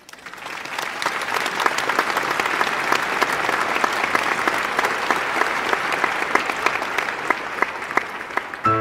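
Applause: many hands clapping, fading in over the first second and then holding steady. Piano music comes in right at the very end.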